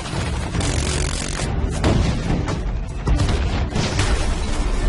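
Action-movie soundtrack: dramatic score under rapid gunfire and booming explosions, dense and loud throughout.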